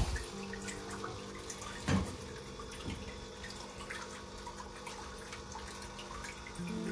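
Quiet background music of steady held notes, with a few hard knocks as plant pots are set back down, the loudest about two seconds in.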